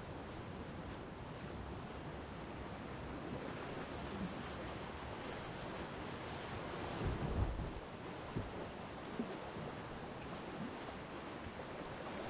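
Rushing whitewater of a river rapid heard from a kayak running it, a steady churning wash with some wind buffeting on the microphone. About seven seconds in a louder low buffet comes as water surges over the bow, followed by a few short splashes.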